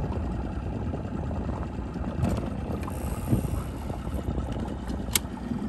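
A boat motor running steadily at slow speed, heard as a low rumble with wind and water noise. There is a single sharp click about five seconds in.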